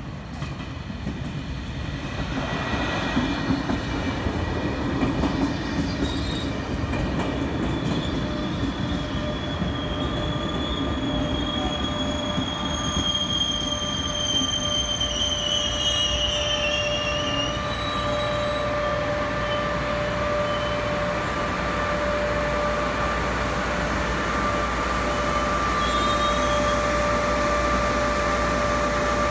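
Double-deck Vivalto passenger train rumbling into the station and braking, with high brake squeal from about eight seconds in until about seventeen seconds. The train then stands with a steady electrical hum.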